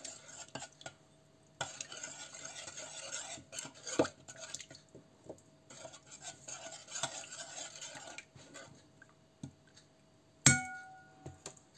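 A metal spoon stirring thin sauce in an enamel bowl, scraping and clicking against the bowl, with a short pause near the start. About ten and a half seconds in, the spoon strikes the bowl once in a sharp clink that rings briefly.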